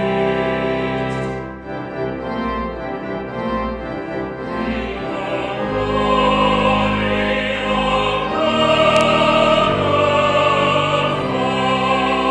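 Small robed choir singing with organ accompaniment, held chords changing from note to note.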